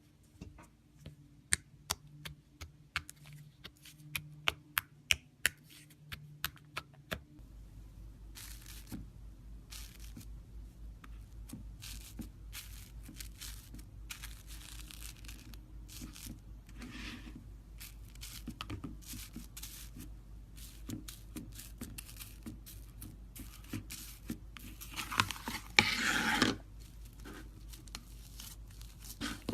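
Slime being handled: a run of sharp pops and clicks for the first several seconds, then crackly tearing and squishing sounds, loudest in a longer burst about 25 seconds in. A low steady hum sets in about 7 seconds in.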